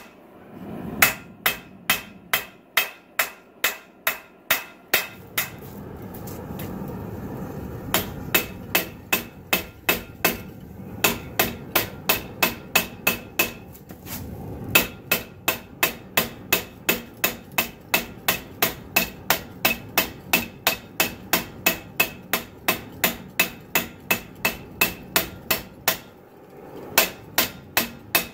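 Hand hammer striking red-hot 80CrV2 steel on a steel anvil, drawing out a knife blade. The blows come in steady runs of about two to three a second, each with a bright metallic ring, broken by brief pauses.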